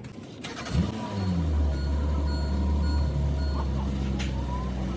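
Honda Civic's engine starting: a short rise in pitch as it catches a little under a second in, then settling into a steady idle.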